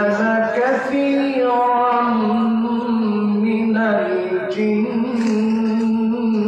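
A man reciting the Quran in Arabic in the melodic, chanted tilawat style, drawing out long held notes with short breaks for breath.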